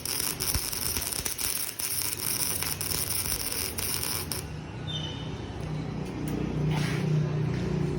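Electric arc welding: a steady crackling, sizzling arc that cuts off suddenly about four and a half seconds in. A low machine hum follows and grows louder near the end.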